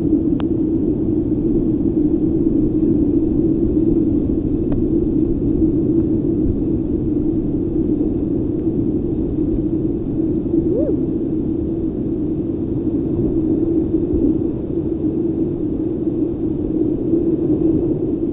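Steady, loud rush of whitewater rapids around a whitewater kayak running a steep creek, heard dull and low.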